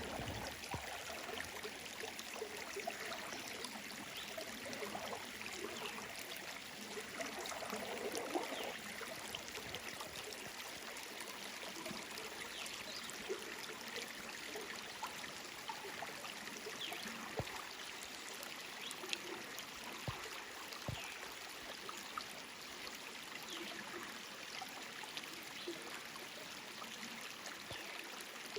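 Clear mountain creek flowing over rocks: a steady rush with small trickles and splashes.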